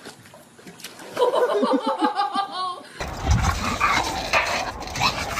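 A dog making rapid pitched cries, with people laughing.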